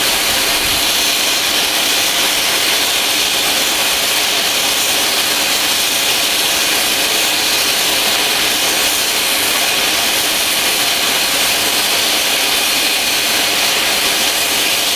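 BR Standard Class 5 4-6-0 steam locomotive No. 73096, standing in the station, blowing off steam in a loud, continuous, unbroken hiss: boiler pressure at its limit and the safety valves lifting.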